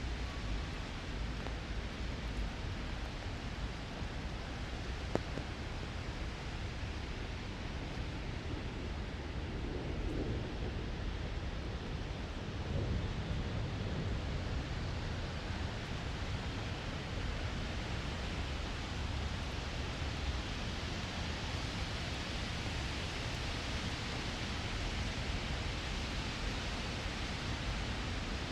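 Steady rain falling, a continuous hiss that grows a little brighter toward the second half, over a low rumble, with a single sharp click about five seconds in.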